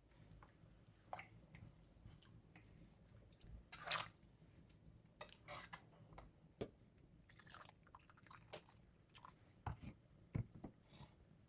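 Faint, scattered kitchen handling sounds: short clicks and scrapes at irregular intervals, the loudest about four seconds in.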